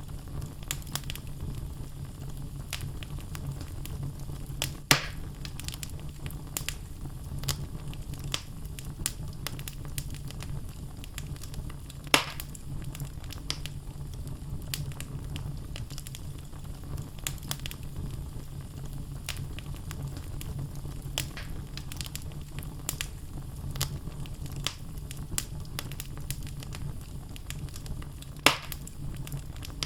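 Wood fire burning in a fireplace: a steady low rumble of flames under frequent small crackles from the logs, with three louder sharp pops spread through.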